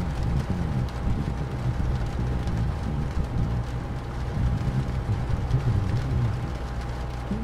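Rain and wind ambience: an even hiss of rain with scattered faint drop ticks over a deep, steady rumble, and a faint steady tone held throughout.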